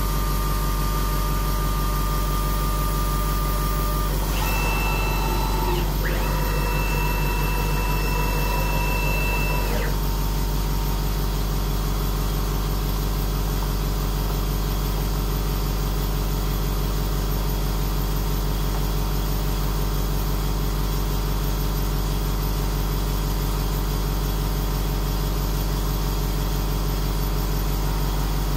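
Steady machine hum from a diode laser cutter mounted on a DIY CNC mill. For the first ten seconds or so, high whining tones sit above the hum and change pitch a few times.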